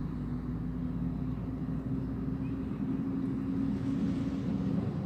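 A motor running steadily: a low drone with a hum held at one pitch.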